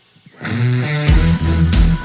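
Rock background music: it starts almost silent, a guitar-like instrument comes in about half a second in, and the full band with a heavy drum beat kicks in about a second in.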